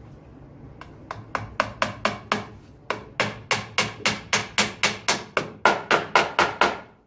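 Hammer driving nails into a pine board, a steady run of about twenty quick blows at three to four a second. The last several blows are louder and ring, and the hammering stops suddenly near the end.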